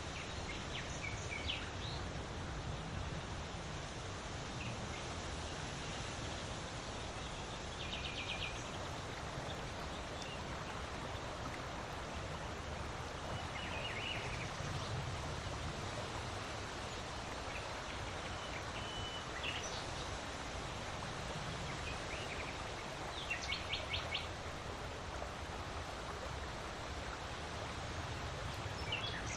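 Steady wind blowing, with small birds chirping in short runs every few seconds.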